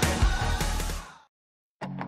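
Background music: a pop song with a heavy bass beat fades out about halfway through, followed by a brief dead silence. Another track starts just before the end.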